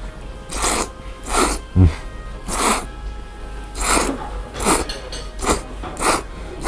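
A person slurping thick Yoshida udon noodles in a series of short, sharp intakes, about eight in all, roughly one every half second to a second. Faint background music plays underneath.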